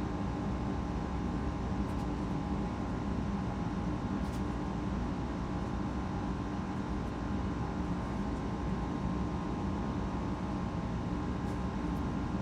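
Steady mechanical hum of a running machine in the room, even throughout, with a few faint light ticks.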